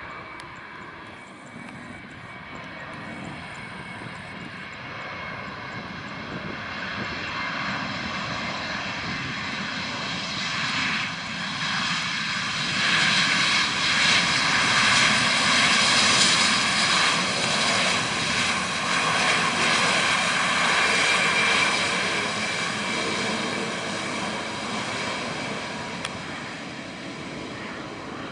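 Airbus A320-family twinjet airliner's engines during the landing roll, a roar with a whining fan tone. It grows louder toward the middle as the jet comes past, then fades.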